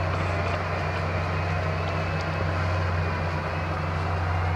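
Steady low mechanical hum, like a motor running, holding an even pitch and level.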